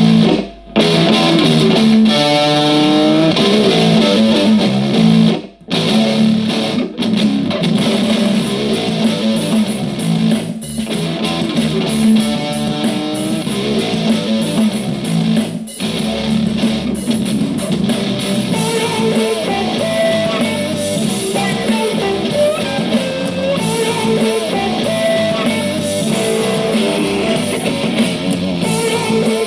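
Guitar music played at full volume through the Creative Pebble Plus's two satellite speakers alone, with the subwoofer unplugged. The music carries some distortion and breaks off briefly a few times.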